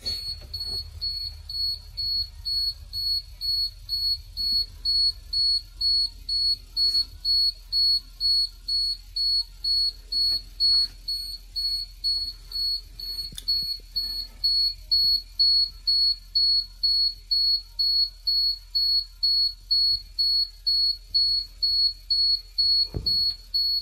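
School bus dashboard warning beeper sounding a high, even beep about twice a second, with a faint low rumble underneath. It sounds with the intake air heater lamp lit on the CAT C7 during a cold start.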